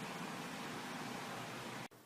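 Steady hiss of recording background noise with no distinct event, cutting off suddenly near the end.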